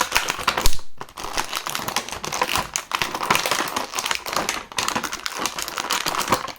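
Plastic packaging crinkling and crackling as an action figure is handled and its parts are pulled out, with many small irregular clicks and rustles and a short lull about a second in.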